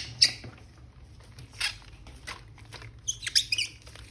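A toy's plastic packaging being handled and opened: scattered crinkles and clicks, with a quick cluster of high squeaks about three seconds in.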